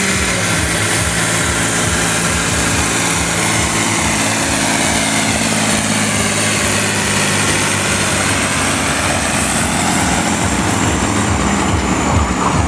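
Six-cylinder diesel engine of a 1992 Fiat F110 tractor, rated 110 hp, running steadily and hard under load as it drags a weight-transfer sled in a tractor pull.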